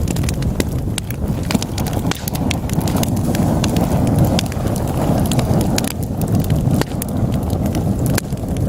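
Wood fire burning in a fireplace: a steady low rush of flames with many sharp, irregular crackles and pops from the burning logs.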